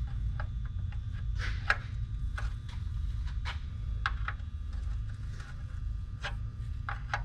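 Scattered light clicks and knocks at irregular intervals over a steady low rumble.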